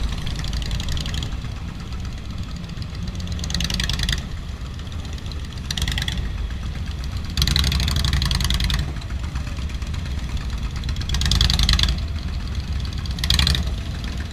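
Several motorcycle engines running at walking pace in a slow procession, a steady low rumble. About five times a nearby bike revs louder, the longest and loudest burst coming about halfway through.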